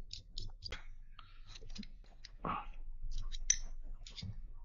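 Carbon-fibre drone frame plates and small screws clicking and tapping together as they are handled, irregular and close by, with a short scrape about halfway through.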